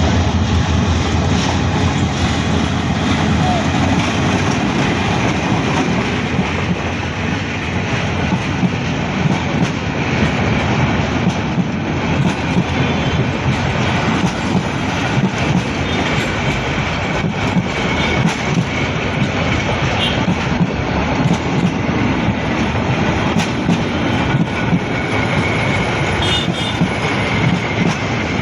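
Passenger train running at speed, its carriages giving a steady loud rumble with repeated clatter of the wheels over the rail joints.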